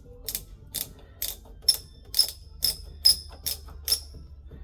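Small ratcheting hand screwdriver clicking in a steady rhythm, about two clicks a second, as a screw is driven by hand. The clicks stop about four seconds in.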